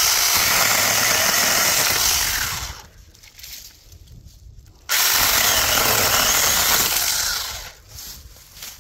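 Battery-powered 6-inch Tomyvic mini chainsaw run twice, about three seconds each with a pause of about two seconds between; each run trails off as the motor winds down.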